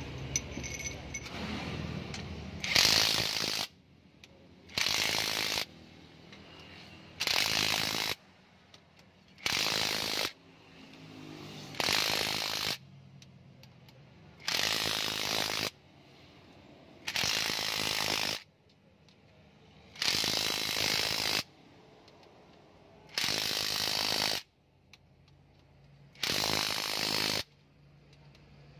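Cordless impact wrench hammering bolts down on a diesel engine's cylinder head, one bolt after another. It comes in about ten short bursts of under a second each, roughly every two and a half seconds, with quiet between.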